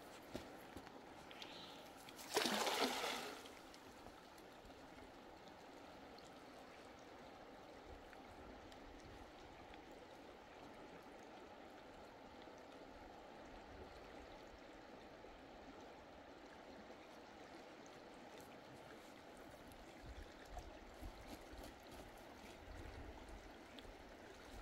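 Water trickling and gurgling steadily, with one sudden loud noise lasting about a second, two and a half seconds in, and a faint low rumble near the end.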